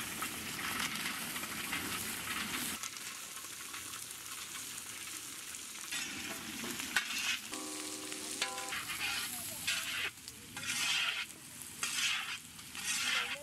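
Curry leaves and green chillies sizzling in hot oil, with steady frying hiss. In the second half a spoon stirs and scrapes against the pan in repeated strokes, about one a second.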